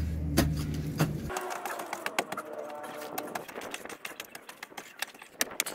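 Mattock chopping into a dead tree root and packed dirt, with repeated irregular knocks and scrapes. A steady low hum underneath cuts off about a second in.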